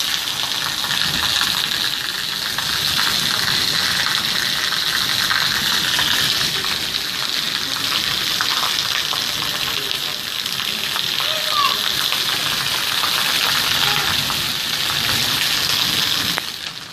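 Heavy rain pouring down: a dense, steady hiss of water, dipping briefly near the end.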